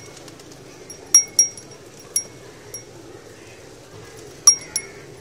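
A goat's brass neck bell clanking as the goat moves: about five sharp, ringing strikes, a pair a little after a second in, one near two seconds and another pair near the end.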